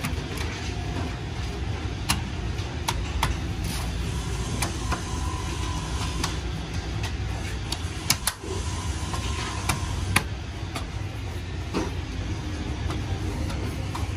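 A plastic wheel cover being pressed and knocked into place by hand on a car's steel wheel: scattered sharp clicks and taps at irregular intervals. Under them runs a steady low rumble like an engine running.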